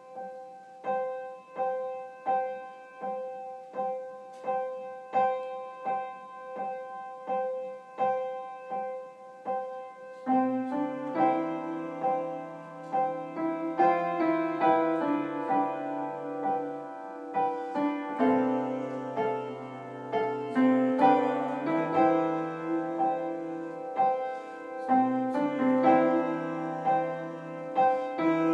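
Upright piano played solo. It opens with slow, evenly repeated notes in the treble. About ten seconds in, left-hand chords and bass notes join, and the music grows fuller and louder.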